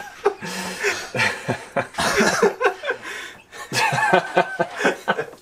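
Men laughing and chuckling, in short bursts that come again and again.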